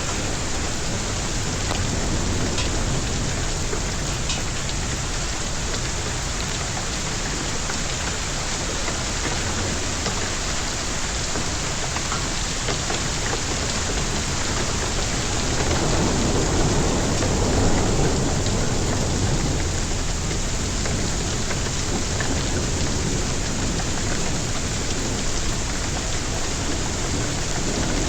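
Storm downpour during a hailstorm: a steady, dense hiss of precipitation. A low rumble of thunder swells a little past the halfway point.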